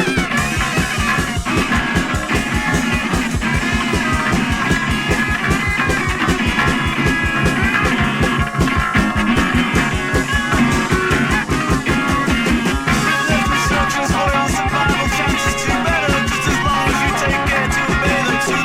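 Post-punk band music with a fast, steady beat under busy instrumental lines.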